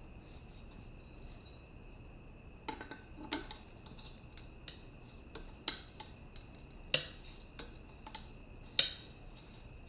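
Steel tire spoons clinking and tapping against a motorcycle wheel rim while the tire bead is worked loose by hand. The clinks are scattered and sharp, starting about three seconds in, with the loudest about seven and nine seconds in, over a faint steady high tone.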